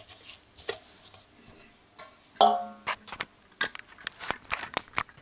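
A brush scrubbing an oil-caked Toyota S-series engine oil pump housing in a basin of solvent, with scraping and light tapping. About two and a half seconds in, a short ringing clank stands out, followed by a run of quick sharp clicks and knocks.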